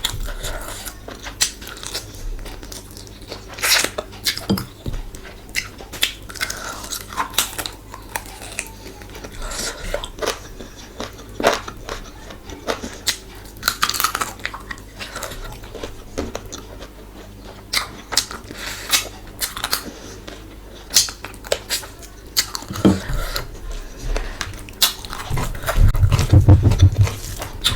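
Close-miked eating: a person chewing and biting food, with many short, sharp wet clicks and crunches from the mouth. Near the end the chewing grows louder and deeper.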